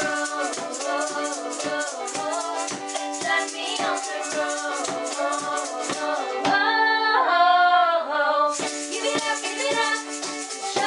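Women's voices singing a song over a cajón box drum played in a steady beat, low thumps about twice a second with rattly high strokes between them. About two-thirds through the drum drops out for a held sung note of about two seconds, then the beat comes back.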